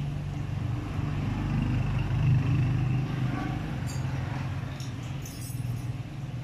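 A motor vehicle engine running nearby, a low steady hum that grows louder about two seconds in and then eases off. A few light clicks come about four seconds in and again near the end.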